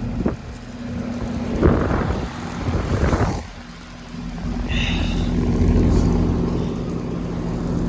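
Outdoor AC condensing unit running: a steady electrical hum with a low rumble that grows louder about halfway through. There are a few knocks and rustles of handling about two and three seconds in.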